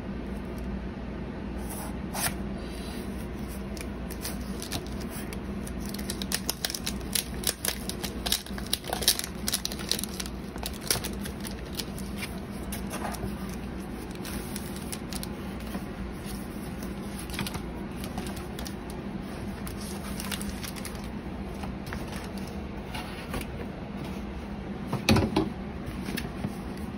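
A cardboard LP jacket and its paper contents being handled: scattered rustling, crinkling and clicking, busiest in the first half, with a thump near the end, over a steady low hum.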